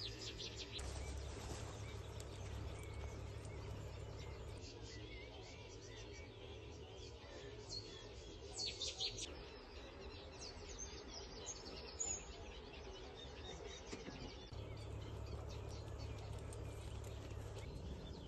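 Small birds chirping and singing in a reedbed and field, with a cluster of louder, quick calls about halfway through, over a low steady rumble.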